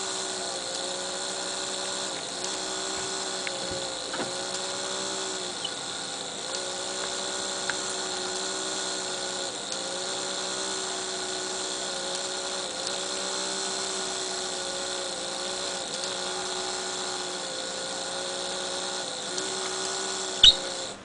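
Small fischertechnik electric motors running with a steady whine, whose pitch dips slightly about every second and a half.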